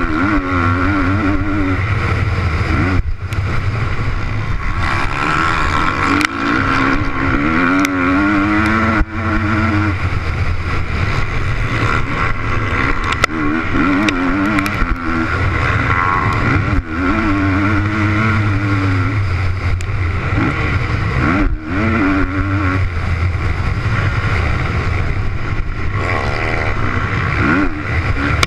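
Motocross bike engine heard close up from on board while racing, its pitch rising and falling again and again as the rider opens and rolls off the throttle through the gears, with brief sharp cuts in power several times.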